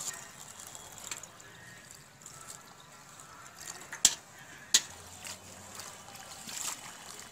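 Water poured from a metal pot onto leafy greens in a steel bowl, trickling and splashing softly. Two sharp knocks about four and five seconds in. Near the end, hands start swishing the leaves in the water to wash them.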